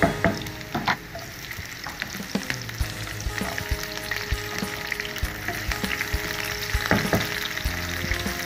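Hot oil sizzling steadily in a frying pan as diced pieces fry, with scattered sharp knocks and pops from a wooden spatula stirring. Sliced onions go into the hot oil and fry along with them.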